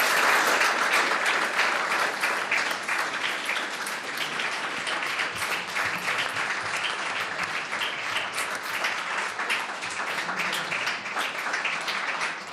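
Audience applauding: dense clapping from many hands, loudest in the first couple of seconds and then settling to a steady level.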